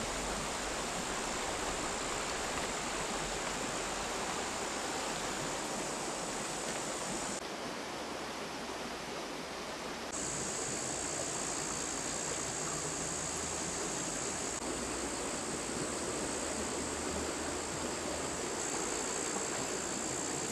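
Shallow rocky river running over stones and riffles: a steady rush of flowing water.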